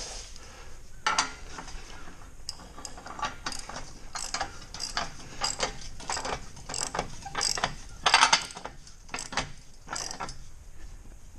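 Hand ratchet wrench clicking in short runs as bolts are tightened on a steel hay unroller frame, a burst of clicks about every half second, the loudest about eight seconds in.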